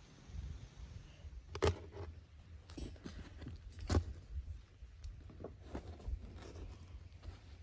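Flatbreads being handled at a clay tandoor oven: scattered light taps and scrapes, with two sharper knocks about a second and a half in and about four seconds in, over a low rumble.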